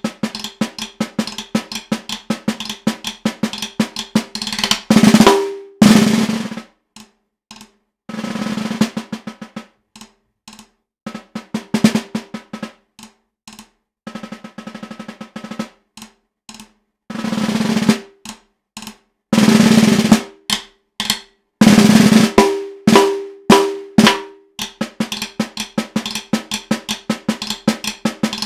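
Solo concert snare drum played with wooden drumsticks, its head damped with a gel pad: quick single strokes and accents broken by short loud rolls about 5 and 8 seconds in and again several times between 17 and 22 seconds, with quieter, sparse taps and brief pauses in between.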